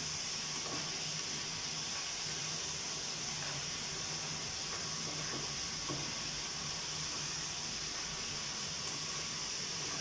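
Food frying in oil in a pan: a steady sizzle, with a few light taps and scrapes of a spatula against the pan.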